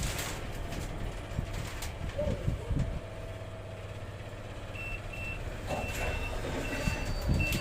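A run of short, high electronic beeps at one pitch, unevenly spaced, starting about five seconds in, over a low steady rumble.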